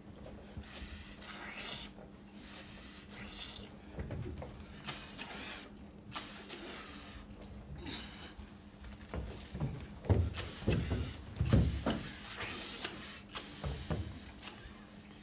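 Performers making repeated short hissing sounds with their mouths, each about half a second long, imitating animals. A few heavy low thumps come about two-thirds of the way in, as bodies and hands meet the wooden stage floor.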